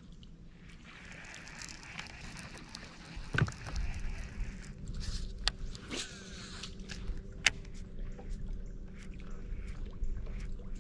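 Baitcasting rod and reel being handled and cast, with the line whirring off the spool about six seconds in. Scattered sharp clicks and knocks, over a faint steady hum.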